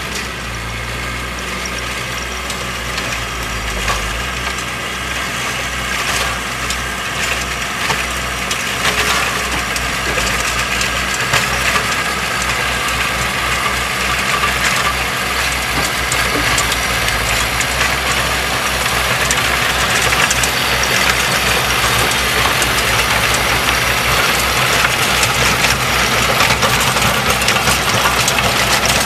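Kubota compact diesel tractor running steadily under load while its PTO-driven rotary tiller churns the soil, growing louder as it comes closer.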